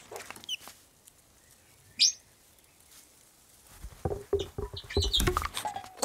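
Cartoon animal sound effects: a single short high chirp about two seconds in, then from about four seconds a rapid run of squeaky chattering and scrabbling clicks from the squirrel.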